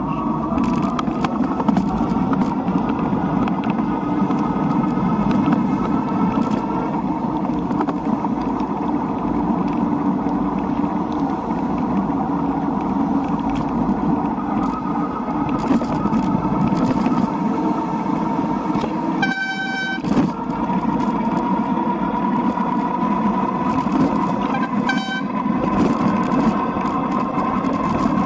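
Steady rush of traffic and tyres on a wet road. A vehicle horn honks once for under a second about two-thirds of the way in, and again more briefly near the end.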